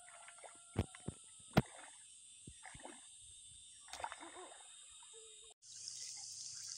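Water splashing and sloshing as a person wades in a shallow pond and gropes in the water beside a plastic basin, with three sharp knocks in the first two seconds. A steady high-pitched drone of insects runs underneath, louder after a cut near the end.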